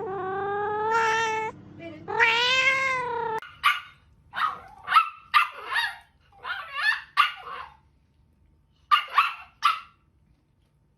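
A cat giving two long drawn-out meows, then a string of short, sharp animal calls that sound like small barks or yaps.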